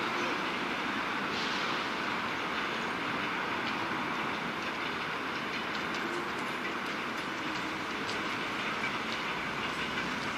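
ED4M electric multiple unit running toward the listener, a steady noise of its wheels on the rails with a few light clicks.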